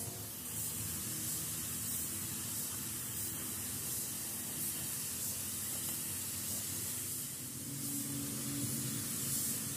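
Gravity-feed paint spray gun hissing steadily as compressed air atomizes the paint, swelling a little now and then, over a low steady hum.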